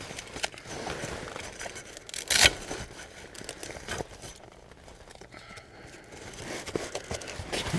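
Canvas and bedding rustling and scraping as someone handles things inside a canvas swag, with scattered small clicks and one short, loud burst of noise about two and a half seconds in.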